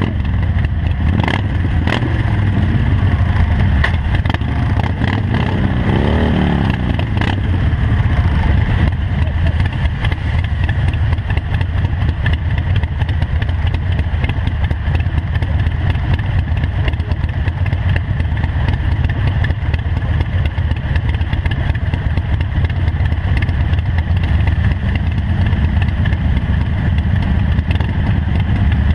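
Harley-Davidson Nightster 1200's air-cooled V-twin running loud through Vance & Hines Short Shots exhaust, a steady low rumble with one brief rev about six seconds in.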